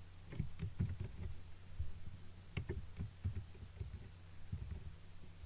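Irregular clicks and soft low knocks of a computer mouse being clicked and moved on a desk, over a steady low electrical hum.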